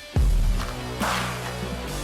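Background music with a heavy electronic beat: deep bass hits about every second and a half, with rising hissy sweeps between them.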